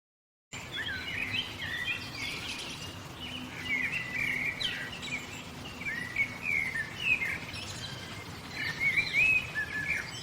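Songbirds chirping and singing: many quick whistled notes and short sliding calls, overlapping with a faint steady background noise.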